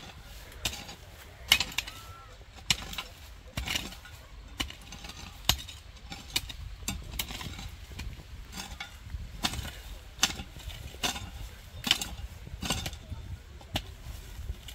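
Hoe blade striking and scraping into the soil around a cassava root, in irregular chops about once or twice a second, to loosen the earth so the roots can be pulled up without snapping.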